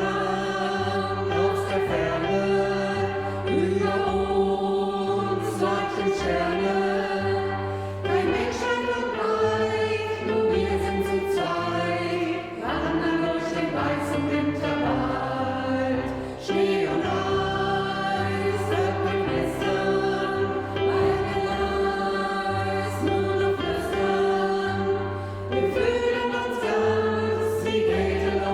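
Amateur choir singing, with a low bass line stepping from note to note about once a second.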